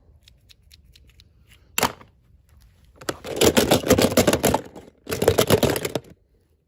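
Packaging crackling as it is handled and torn open: a sharp crackle, then two runs of rapid crackling, each about a second or so long.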